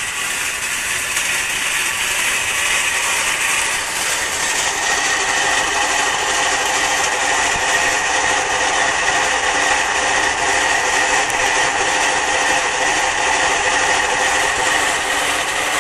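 Electrolux LT15F top-loading washing machine's motor grinding and squealing without letup during the spin cycle, with a steady high whine over a scraping rasp. It is the sign of a fault: the machine no longer gets up to its former spin speed.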